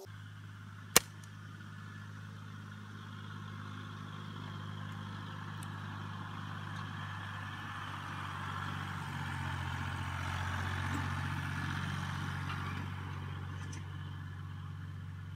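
Tractor engine running steadily as it pulls a box blade over loose dirt. It grows louder as the tractor comes close and passes, then eases off slightly. A single sharp click about a second in.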